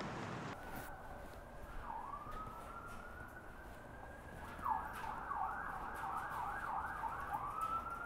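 Emergency vehicle siren wailing with long rising sweeps. About halfway through it switches to a fast yelp of about three cycles a second, then goes back to a rising wail near the end.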